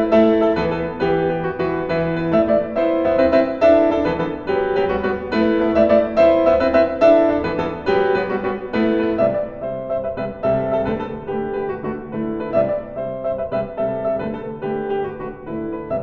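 Steinway D concert grand piano played solo: a fast, dense stream of notes in a repeating pattern, mostly in the middle register, growing thinner and a little softer from about halfway through.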